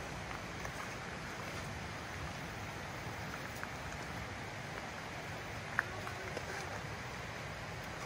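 Steady rushing outdoor background noise, with scattered light clicks and ticks from hikers walking a rocky dirt forest trail, and one sharper click about six seconds in.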